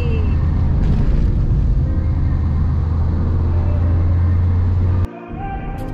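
Steady low rumble of a moving vehicle, which cuts off suddenly about five seconds in and gives way to a quieter, different sound.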